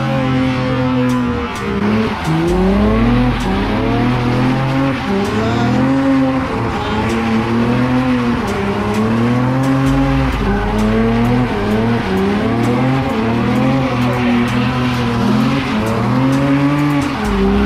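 Chevrolet Camaro doing donuts: the engine revs rise and fall over and over, about every one to two seconds, while the tires squeal on the pavement.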